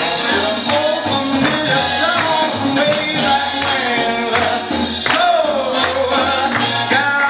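Upbeat music with a singing voice over a steady beat, played for a line dance.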